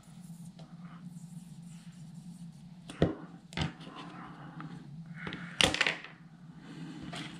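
Small hand-tool work on a circuit board: a screwdriver turning a small screw, then a few sharp clicks and knocks as the board and screwdriver are handled and put down on a cutting mat. The loudest cluster of knocks comes about two-thirds of the way in. A steady low hum runs underneath.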